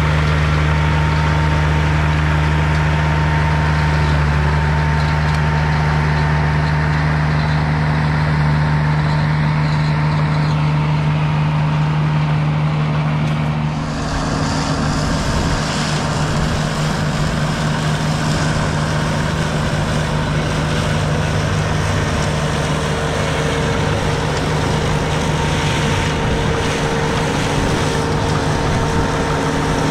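Irus Deltrak 2.5 tracked slope mower running steadily while its flail mulcher cuts tall grass. About fourteen seconds in the sound changes abruptly to a rougher, noisier mulching sound at the same loudness.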